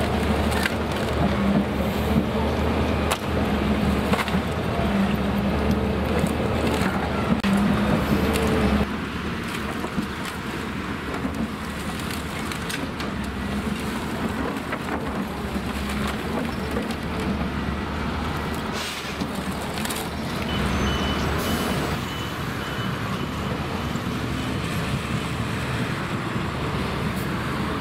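Diesel engine of heavy construction machinery running steadily, with scattered knocks and clatter. The engine sound drops sharply about nine seconds in and picks up again later, and a faint, high, broken beeping comes about two-thirds of the way through.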